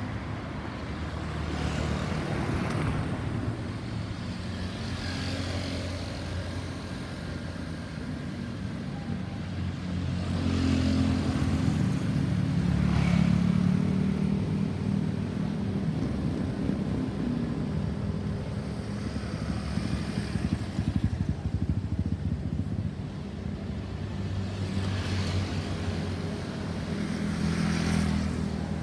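Road traffic: cars and motorcycles passing one after another over a continuous low engine rumble, with no siren sounding.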